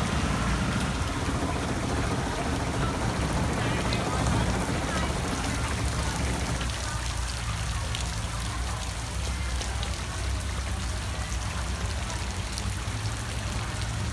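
Steady rain falling, an even hiss with scattered drop ticks over a continuous low rumble.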